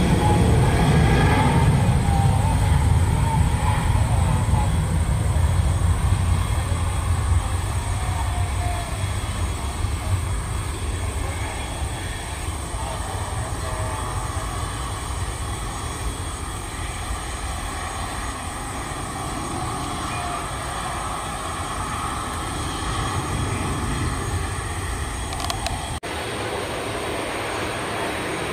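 Boeing 737-800's CFM56-7B turbofan engines at take-off thrust: a loud low rumble with a steady whine, easing off gradually as the jet climbs away. About 26 seconds in, the sound cuts abruptly to a quieter, steady jet engine noise from another 737-800 on approach.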